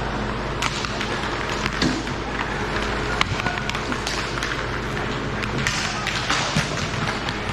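Hockey play: scattered sharp clacks of sticks and puck over a steady rink hum.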